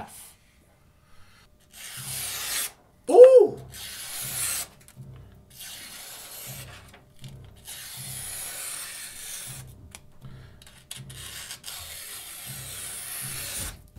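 A sheet of paper being sliced by the Harnds Beak folding knife's Sandvik steel blade in a sharpness test: stretches of hissing cutting noise with short pauses, the blade running cleanly through the paper, which is called stupid sharp over the entire blade. A brief pitched sound about three seconds in is the loudest moment.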